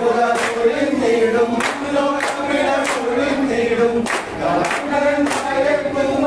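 Group singing of a Kerala kaikottikali clapping-dance song, with hand claps on a steady beat about every 0.6 seconds.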